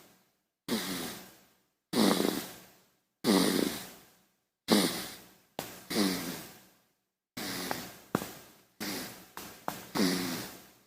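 A baby snoring: a series of short, pitched snoring breaths, each starting suddenly and fading away, with silent gaps between them. The breaths come roughly once a second at first, then quicker and more broken toward the end.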